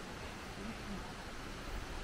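Steady outdoor background noise, an even hiss, with faint voices talking in the background.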